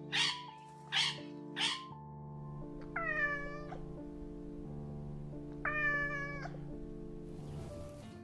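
A blue-and-yellow macaw gives three harsh squawks in the first two seconds. A cat then meows twice, about three and six seconds in, the second meow longer. Steady background music plays underneath.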